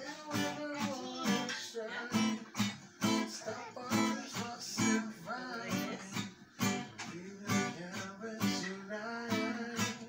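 Acoustic guitar being strummed, chords in a steady rhythm of about two strokes a second.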